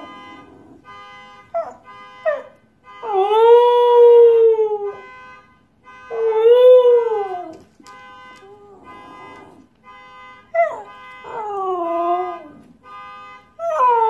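A husky howling at a car alarm: two long howls about three and six seconds in, then shorter falling cries and whines near the end. Under them the alarm beeps in a steady, rapid on-off pattern of several tones.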